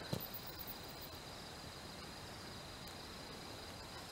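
Insects trilling steadily in a high, even tone, with one dull thump just at the start.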